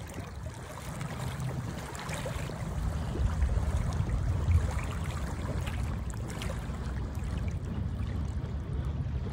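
Small waves lapping and trickling over the pebbles at a lake's edge, under a low rumble of wind on the microphone.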